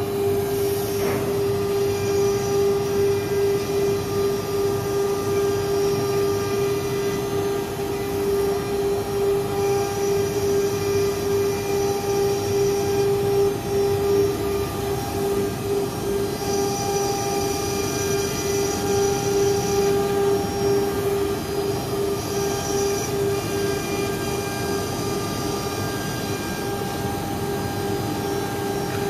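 Hiteco 11 kW water-cooled spindle of a CNC router running at speed with a steady whine, over the continuous noise of the bit routing a sheet.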